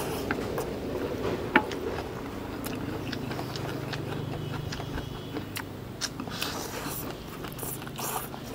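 Eating sounds: utensils clicking and scraping against plates with chewing. A low steady hum runs underneath from about three seconds in.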